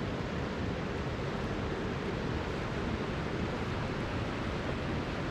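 Steady rushing of the North Fork of the Virgin River, an even wash of moving water.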